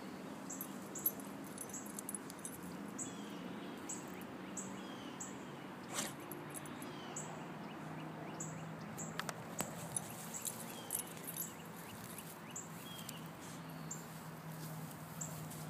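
Outdoor ambience of birds chirping, with a short high peep repeated roughly every half second and a few short falling chirps, over a steady low hum. A few sharp clicks stand out, the loudest about a second in.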